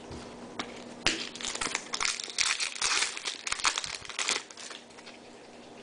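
Trading card pack wrapper crinkling and tearing in the hands. A quick run of rustles from about a second in, easing off near the end.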